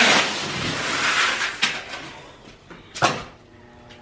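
Water from a hose gushing into a plastic bucket, fading out after about two seconds, then a single sharp knock near the end.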